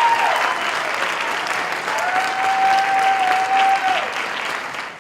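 Audience applauding, a dense crackle of clapping, with long held whoops of cheering that slide down at their ends, one at the start and another from about two to four seconds in.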